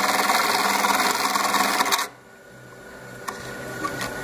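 Juki LK-1900B computer-controlled bartack machine running at speed, stitching a box-cross tack through heavy rope-like webbing, then cutting off suddenly about two seconds in as the pattern finishes. A few light clicks follow.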